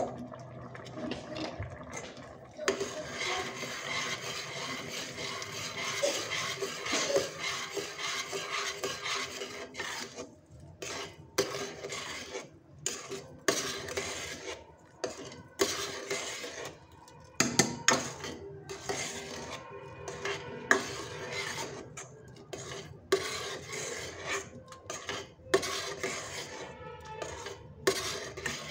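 A long metal spoon stirring a thick carrot-and-milk mixture in a steel pot, scraping the bottom and sides, with irregular clinks of metal on the pot.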